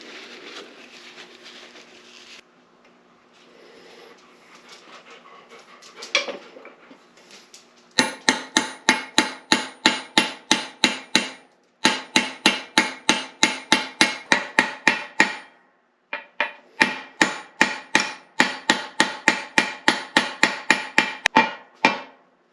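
Hammer striking metal in quick, even blows, about three to four a second, in three runs with short pauses, each blow ringing: driving the shift rail seals in an NP205 transfer case. Quieter handling noise and a single knock come before the hammering starts.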